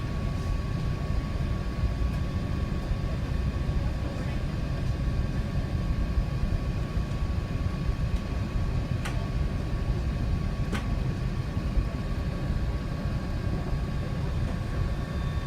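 Steady low rumble of cabin noise inside an Airbus A380, with a faint steady tone above it. Two light clicks come about a second and a half apart near the middle.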